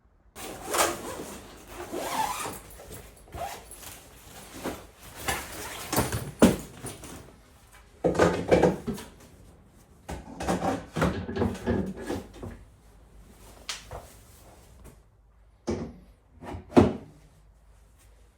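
Column PA speakers being assembled by hand: a series of clacks, knocks and scraping as the column sections and top speakers are slid and seated into the subwoofer bases, with two louder knocks about six seconds in and near the end.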